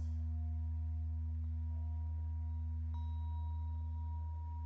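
Soft background music of long held notes over a steady low hum, with a new note coming in about three seconds in.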